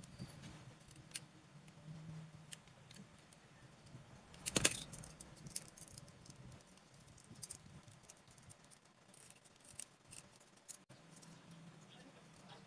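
Utility knife blade shaving and scraping the edges of a small popsicle-stick frame: scattered small clicks and scrapes, with one louder crackling cut about four and a half seconds in, over a faint low hum.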